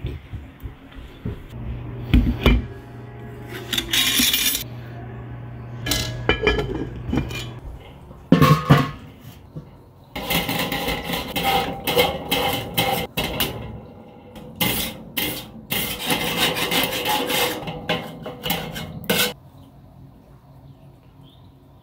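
Metal cookware and charcoal-grill parts clanking and scraping in irregular bursts, densest in a long run of rapid knocks and scrapes from about halfway through until near the end.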